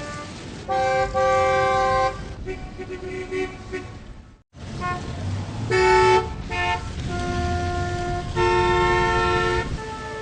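Street traffic with car horns honking over the low rumble of engines: a long honk about a second in, a couple of short honks around six seconds, and another long honk near the end. The sound cuts out briefly about halfway through.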